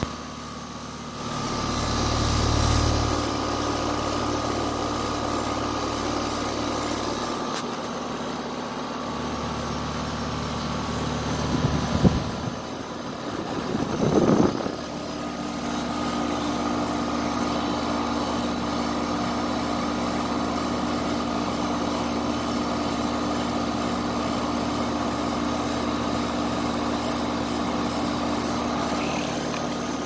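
Carrier central air-conditioner outdoor condensing unit running: a steady hum from the compressor and the top-discharge condenser fan, with a few brief louder bumps partway through.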